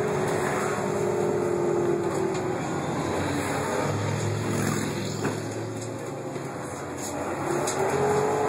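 Irisbus Citélis 12 city bus with a Voith automatic gearbox, heard from inside the passenger cabin: the transmission whine fades away in the first few seconds, the engine runs low and quieter in the middle, and the whine rises again near the end as the bus pulls ahead.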